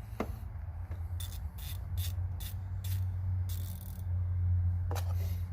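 A 90-tooth Icon 3/8-inch drive stubby ratchet being worked back and forth, giving a run of short rasping clicks starting about a second in, then a longer rasp and one more near the end.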